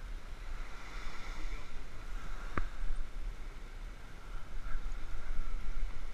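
Wind rushing over the microphone with small waves lapping at the shoreline, rising and falling in level, and a single sharp click about two and a half seconds in.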